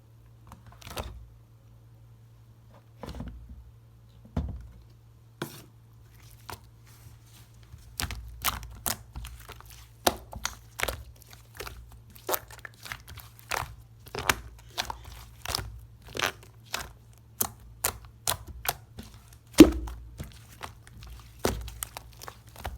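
Toy slime being handled, giving sharp popping and crackling clicks: a few scattered at first, then about two a second from about eight seconds in, with one louder pop near the end.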